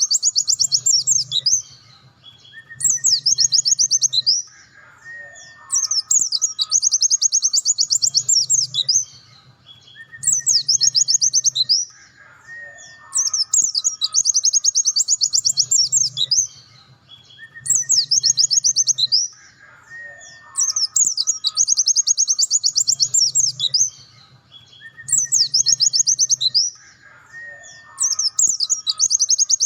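Pleci dakun white-eye singing in fast, high twittering bursts of one to two seconds, repeated over and over with short pauses between them. A faint, thin whistle sounds in the gaps.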